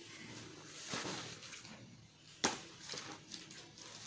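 Quiet rustling of paper notebooks being handled and pulled from a school backpack, with one sharp knock about two and a half seconds in.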